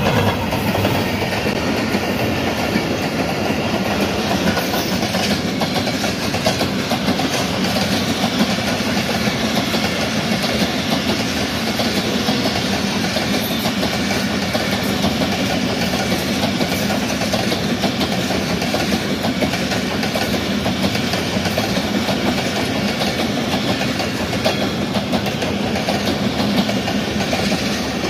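A passenger train running past close by: the GEU-40 diesel-electric locomotive going by at the start, then a long string of coaches with a steady rumble and wheels clacking over the rail joints.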